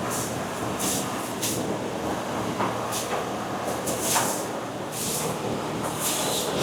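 Factory machinery running steadily, with repeated short hissing bursts every half second to a second.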